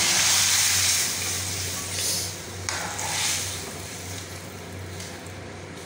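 Boiled dal with taro leaves hitting hot oil and fried onions in a wok: a loud sizzling hiss that dies down after about a second, followed by softer swishes as a ladle stirs the wet mixture.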